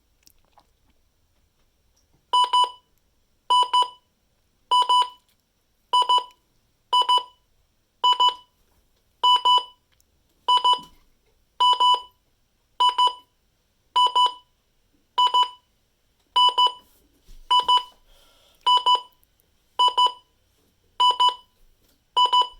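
Midland WR-300 weather alert radio sounding its alarm in a test: a loud electronic beep repeated about once a second, starting a couple of seconds in and going on steadily.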